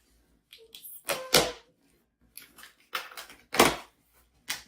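Cardboard shipping box being opened by hand: a series of short, sharp bursts of tearing and rustling packaging, the loudest about a second and a half and three and a half seconds in.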